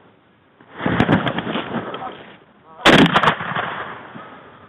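Shotgun blasts at incoming geese: a quick volley of several shots about a second in, then another volley of several shots about two seconds later, each rolling off in a long echo.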